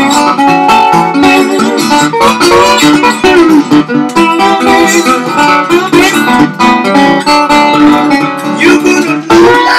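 National tri-cone resonator guitar fingerpicked with a bottleneck slide: a steady thumbed bass under a slide melody, with short gliding notes among the plucked ones.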